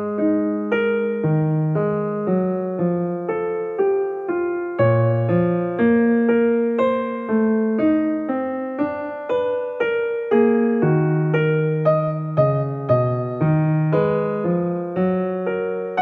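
Background piano music: a gentle melody of single struck notes, about two a second, each one fading before the next.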